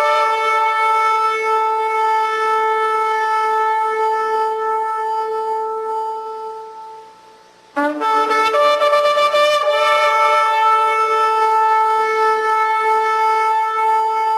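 Two long, steady horn blasts on one pitch. The first fades out about seven seconds in; the second starts abruptly just under a second later with a quick upward slide in pitch and then holds.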